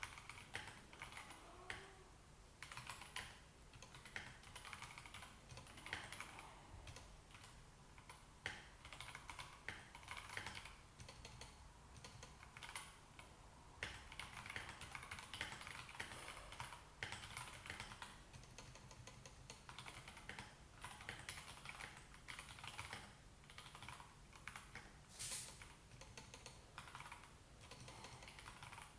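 Typing on a Royal Kludge RK84 mechanical keyboard with stock Gateron Yellow linear switches and thick XDA-profile PBT keycaps: a quick, uneven run of soft keystroke clicks, with one sharper, louder stroke late on.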